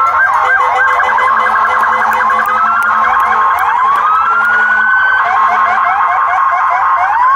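Emergency vehicle sirens sounding together, including a police vehicle's. Slow rising wails overlap with fast yelping sweeps and a steady held tone.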